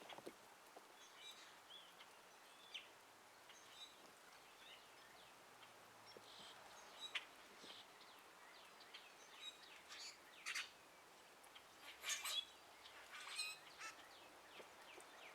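Songbirds chirping, faint and scattered, with a few louder calls bunched together about two-thirds of the way through.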